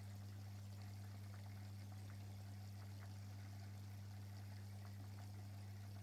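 Aquarium pump running with a steady low hum, over a faint trickle of water with small scattered ticks.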